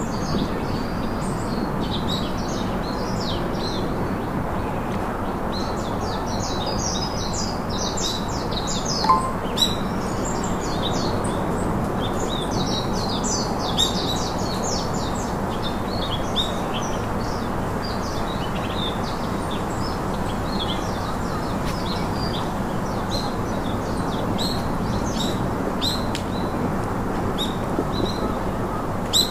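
Forest ambience: many small birds chirping and twittering in quick high notes throughout, over a steady background hiss.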